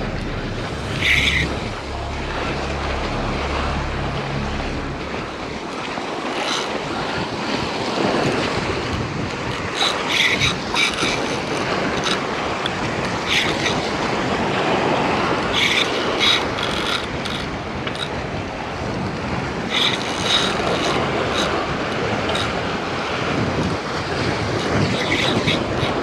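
Wind on the microphone over surf washing against the jetty rocks, with short sharp sounds every few seconds and a low rumble of wind for the first few seconds.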